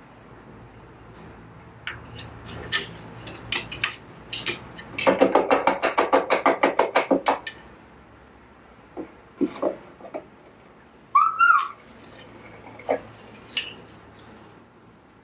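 Cockatoo playing on a wooden toy stand: scattered sharp clicks and knocks of beak and feet on wood and a cardboard box, with a fast run of about a dozen loud knocks, roughly six a second, about five seconds in. About eleven seconds in the bird gives one short whistled call that rises and falls.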